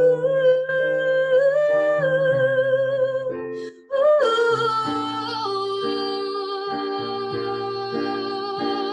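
Wordless singing: a singer holds two long notes with vibrato, a hummed or open-vowel melody, over acoustic instrumental accompaniment.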